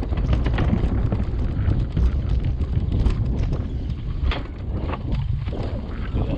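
Footsteps on the wooden planks of a suspension footbridge and then on concrete paving, a quick run of short knocks over a constant low wind rumble on the microphone.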